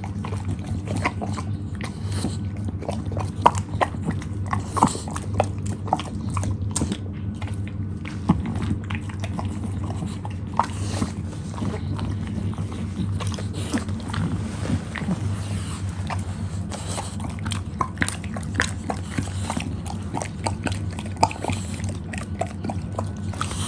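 English bulldog chewing and crunching pieces of apple, with irregular crunches and clicks over a steady low hum.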